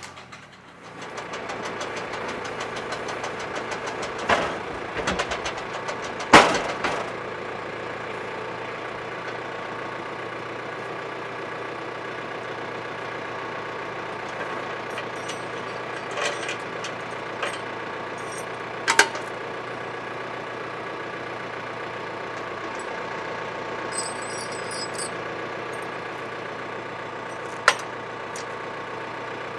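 Tractor engine running steadily behind a tractor-mounted log winch, with several sharp knocks from the winch gear, the loudest about six seconds in.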